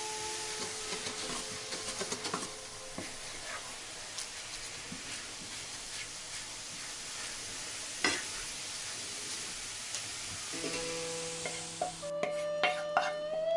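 Sugar-and-soy sauce bubbling and sizzling hard in a frying pan, with a wooden spoon stirring and clicking against the pan and one louder knock partway through. Near the end the sizzling stops and the pan clinks as the sauce is poured into a bowl.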